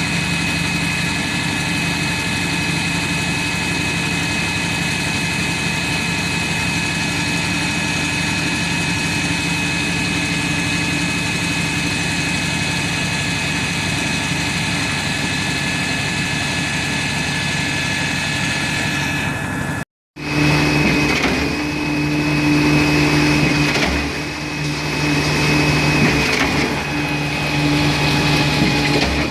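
Concrete pump truck's engine running, a steady machine drone with a thin high whine. It cuts out for a moment about two-thirds of the way in. It then resumes with a different, uneven note that rises and falls.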